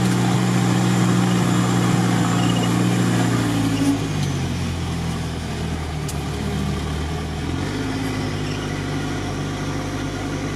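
Off-road 4x4's engine running steadily at low revs. About four seconds in, the note drops lower and quieter, and it shifts again near eight seconds.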